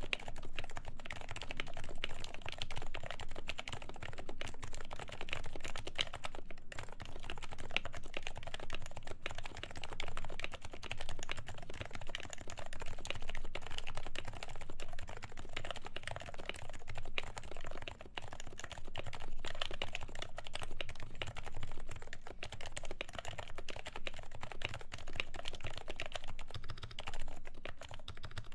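Steady, fast typing on a Happy Hacking Keyboard Professional with 45g Topre switches that are lubed and fitted with silencing rings, which damps the keystrokes. There is a brief pause about six and a half seconds in.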